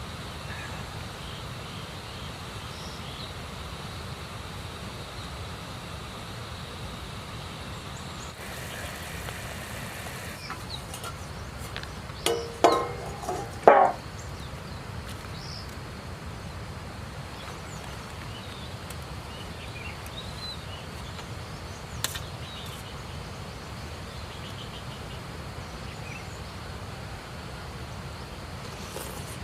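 Steady rush of a flowing river, with a short burst of louder sounds about halfway through and a single click later on.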